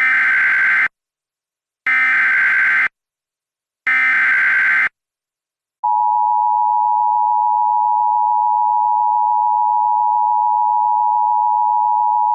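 Emergency Alert System tones: the SAME header, three one-second bursts of screeching digital data about two seconds apart, then about six seconds in the steady two-tone EAS attention signal begins and holds. The alert announces a flash flood warning.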